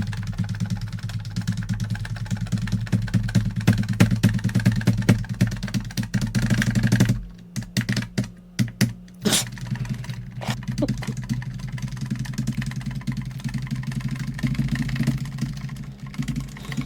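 A computer key is tapped rapidly and over and over, hammered to call up the boot menu, with a short pause about halfway through. Under it runs the steady low hum of an old HP computer's spinning hard drive, described as groaning.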